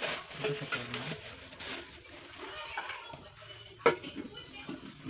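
Plastic packaging crinkling and rustling as a food processor's parts are unwrapped by hand, with small ticks and one sharp knock of the parts just under four seconds in.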